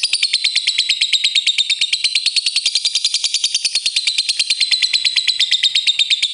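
Lovebird giving a long 'ngekek' song: a fast, even, high-pitched chatter of many sharp notes a second, held without a break.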